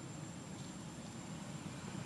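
Steady low rumbling outdoor background noise, with a faint thin high tone running under it.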